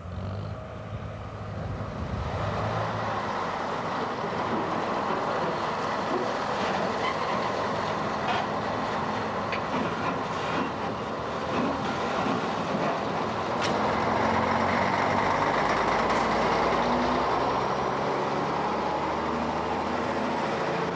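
Steady running noise of a moving vehicle that builds up over the first two seconds and then holds, with a few short clicks now and then.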